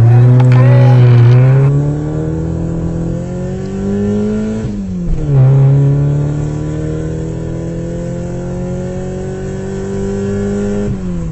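School bus engine accelerating: its pitch climbs steadily, drops sharply about five seconds in as if shifting up a gear, then climbs again and drops once more near the end.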